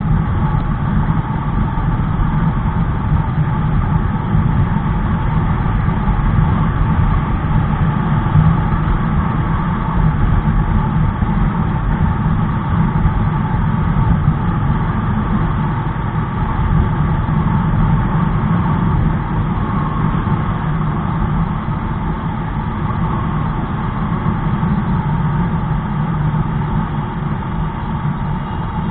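Motorcycle engine running steadily at a highway cruise, with road and wind noise, heard from a camera mounted on the bike's handlebars.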